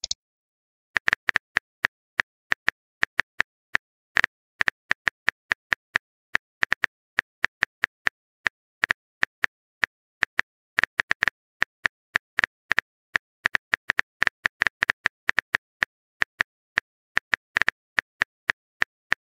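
Keyboard tap sounds of a texting app, one short, sharp click for each letter typed, coming at an uneven rate of a few per second.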